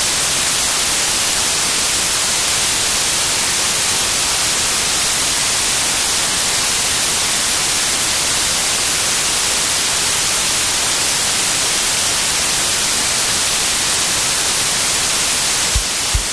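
Loud, steady white-noise static: an even, unbroken hiss, strongest in the high end, with a couple of low thumps at the very end.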